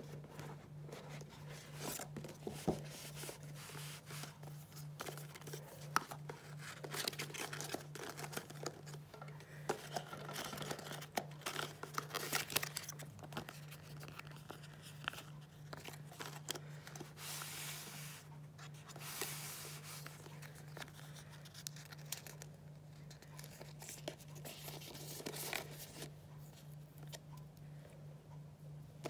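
Paper and sticker sheets rustling and crinkling as hands handle them, with irregular light taps and clicks against the packaging.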